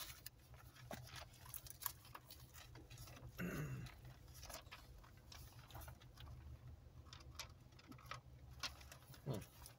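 Near silence on the call line: a low steady hum with faint scattered clicks and ticks, and a brief murmur about three and a half seconds in.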